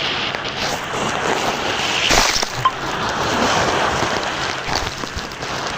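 Sea surf washing in as a steady rush of water, with one louder wave breaking about two seconds in.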